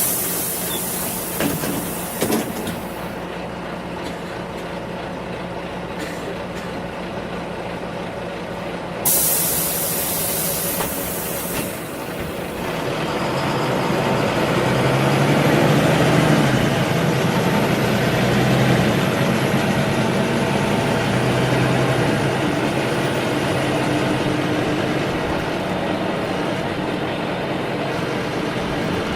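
Inside a city bus: two loud hisses of released compressed air from the bus's air brakes or doors, one at the start and one about nine seconds in. Then the engine builds up and runs harder as the bus pulls away, with a faint high whine rising and falling above it.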